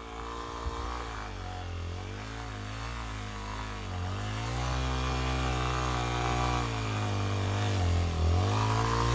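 Dual-sport motorcycle engine revving unevenly as the rider works the throttle up a snowy track, its pitch dipping and rising several times. It grows steadily louder as the bike approaches.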